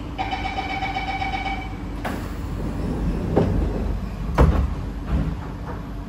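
Door-closing chime on an SMRT C151A metro train, a steady tone lasting about a second and a half. It is followed by the sliding doors closing, with several thuds; the loudest comes about four and a half seconds in.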